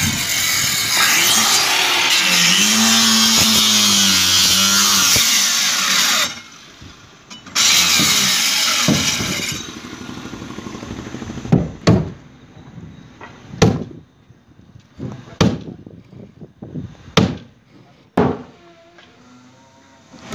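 Corded handheld electric grinder-cutter running and cutting into fibreglass and wood in two long bursts, the first about six seconds long and the second about two seconds. After that come a handful of sharp separate knocks, roughly one every second and a half to two seconds.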